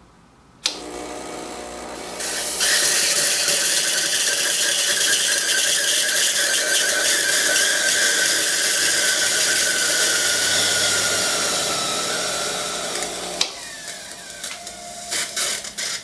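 Lelit PL41TEM single-boiler espresso machine: a toggle clicks and the pump starts buzzing. About two and a half seconds in, the steam wand opens with a loud hiss of steam and water spitting into a steel pitcher, its tone falling slowly, for about eleven seconds. It then shuts off with a click, followed by a few switch clicks. Running water through the wand after steaming refills the boiler and brings it down from steam temperature.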